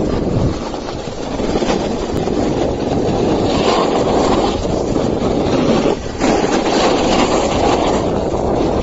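Steady rushing noise of fast sliding down packed snow, with wind buffeting the microphone. It dips briefly about six seconds in.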